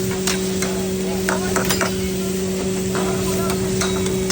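Chicken karahi sizzling in a karahi while a metal ladle stirs it, clinking and scraping against the pan several times. A steady low hum runs underneath.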